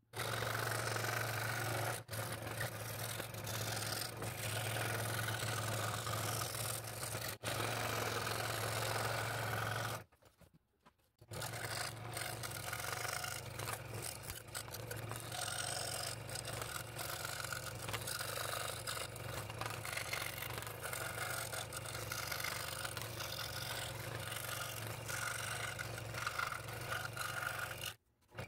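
Scroll saw running and cutting through stacked wood: a steady motor hum under the rasp of the reciprocating blade. The sound breaks off for about a second around ten seconds in and again just before the end.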